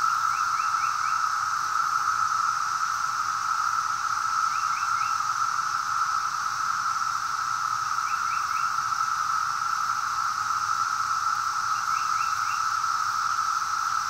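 Chorus of 17-year periodical cicadas: a loud, steady, unbroken drone with a thinner high hiss above it.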